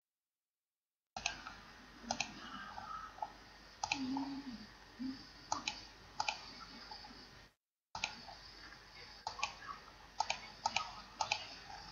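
Computer mouse clicks: a dozen or so short, sharp clicks at irregular intervals, some in quick pairs, over a low hiss. The sound starts about a second in and cuts out to dead silence briefly about halfway through.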